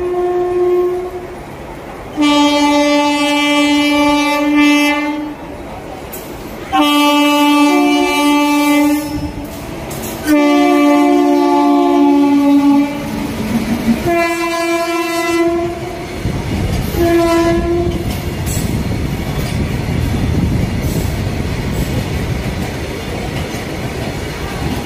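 An Indian Railways electric locomotive hauling a goods train sounds its horn in a series of blasts: a brief one at the start, then five more of one to three seconds each, stepping between two pitches, the last one short. After that the goods wagons roll past with a steady rumble and clickety-clack of wheels on the rails.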